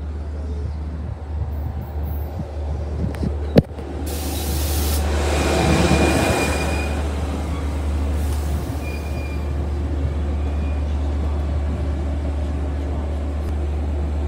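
Long Island Rail Road diesel push-pull train with bilevel coaches rolling into the station and braking to a stop close by. A steady low drone runs under the rumble of the wheels, with a sharp clank a few seconds in. Near the middle the noise swells as the brakes squeal briefly, and a fainter squeal follows a few seconds later.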